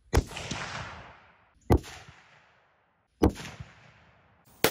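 Three .30-06 rifle shots from a bolt-action Tikka T3X, about a second and a half apart, each trailing off in echo; another shot begins right at the end.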